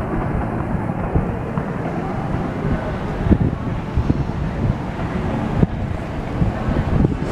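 Wind buffeting the microphone outdoors: a steady low rumble, with a few brief thumps.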